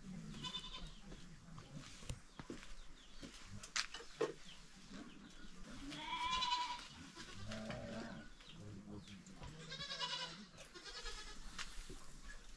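Livestock bleating: three quavering bleats, about half a second in, around six seconds in and about ten seconds in, with a few light knocks in between.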